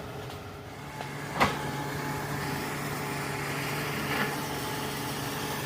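Excavator diesel engine running steadily, with a single sharp knock about a second and a half in.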